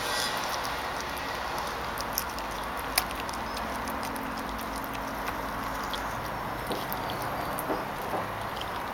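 Yellow Labrador puppy chewing and gnawing a raw chicken leg, with scattered sharp crunches of bone, the loudest about three seconds in. A steady hiss sits underneath.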